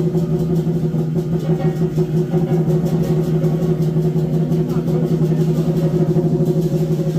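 Lion dance drum played in a fast, continuous roll, giving a steady, rapidly fluttering hum at one pitch.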